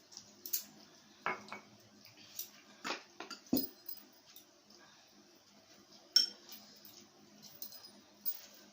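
Cutlery and dishes at a meal: scattered clinks and taps on plates, with a heavier knock about three and a half seconds in and a sharp click about six seconds in.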